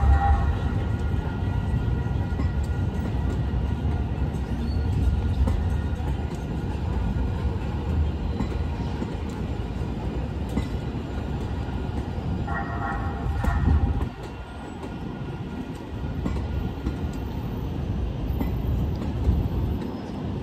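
San Diego MTS light-rail trolleys rumbling past at a street crossing, with a bell ringing briefly right at the start and again about two-thirds of the way through. The rumble drops suddenly in level about 14 seconds in.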